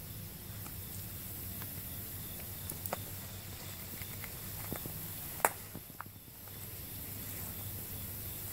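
A black snake crawling through dry leaf litter on gravel: a few scattered crackles and clicks of dry leaves over a steady outdoor hiss, the sharpest about five and a half seconds in.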